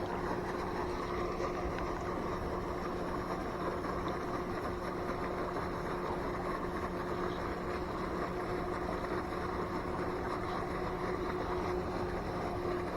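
A steady, even motor hum with a constant low tone that doesn't change.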